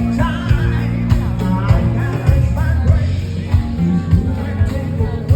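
A song with a singing voice over a band and a steady beat.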